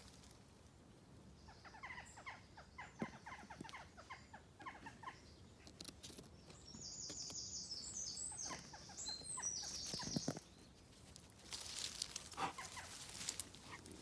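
A songbird singing a run of high, thin notes at stepping pitches, over footsteps rustling and crackling through ivy and leaf litter.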